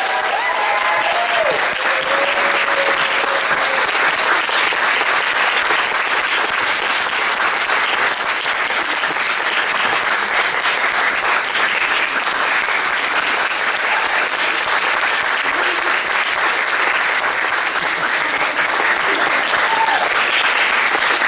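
Large audience applauding steadily, with a few cheers in the first couple of seconds.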